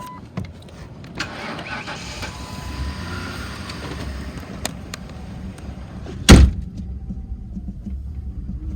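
The Crown Victoria's 4.6-litre V8 is being cranked by the starter for about five seconds, then a single loud knock, then the engine idles low and steady. It is running only on gas poured into the intake, because the fuel pump is bad.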